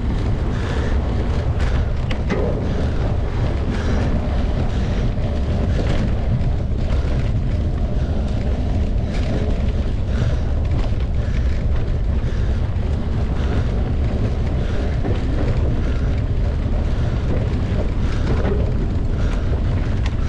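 Steady wind rumble on the microphone of a camera riding along on a mountain bike at race speed, with frequent small knocks and rattles from the bike over rough ground.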